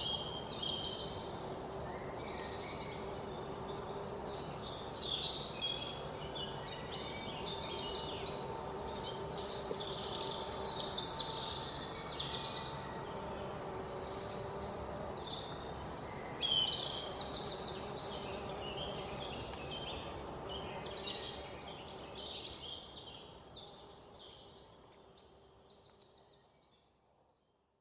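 Several birds chirping and calling, many of the calls quick trills of repeated notes, over steady outdoor background noise. The sound fades out near the end.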